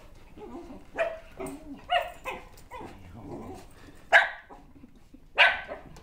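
Shetland sheepdog barking in excitement at a greeting: four loud, sharp barks, the last two the loudest, with softer yips in between.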